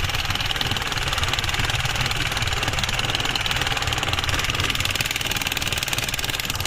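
A fishing boat's engine running steadily, heard from on board while the boat is under way.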